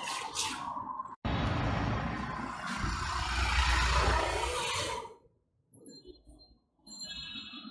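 Road traffic noise with a heavy low rumble, broken off sharply about a second in and falling away about five seconds in. Near the end a cycle rickshaw's bell rings.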